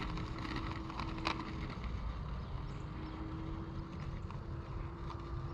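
Faint, steady whine of a radio-controlled airplane's electric motor at low throttle as it taxis after landing. It drops out briefly a couple of seconds in and then resumes, over a low wind rumble on the microphone.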